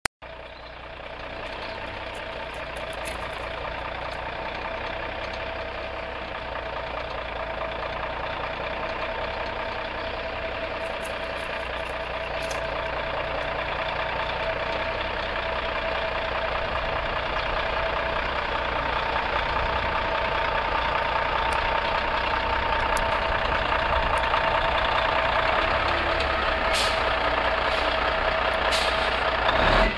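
1997 Freightliner FLD 120's Cummins N14+ diesel engine running at low speed as the truck rolls slowly closer, growing steadily louder, with a steady high note over the engine sound.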